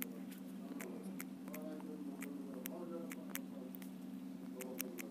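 Irregular light clicks of taps on a phone's on-screen keyboard while text is typed, over a steady electrical hum, with faint voices in the background.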